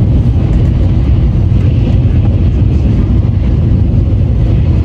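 Shinkansen bullet train running, a loud steady low rumble.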